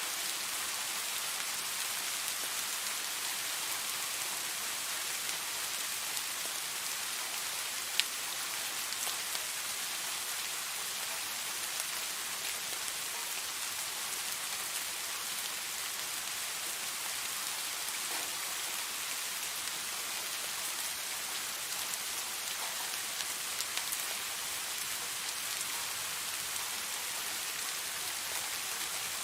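Steady rain falling, an even hiss with scattered individual drop ticks and one sharper, louder drop click about eight seconds in.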